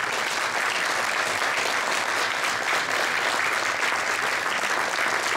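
Audience applauding steadily: many people clapping, a dense even patter at a constant level.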